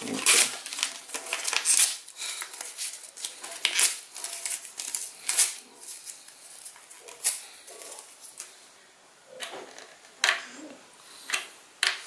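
A sheet of paper being torn by hand into small scraps: an irregular series of short rips, with a quieter pause near the middle.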